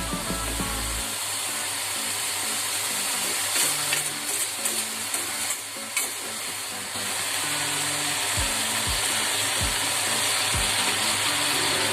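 Ginger and palm-sugar water boiling in a pan with a steady sizzling hiss as the sugar melts into the ginger water. A few short low thumps come in the second half.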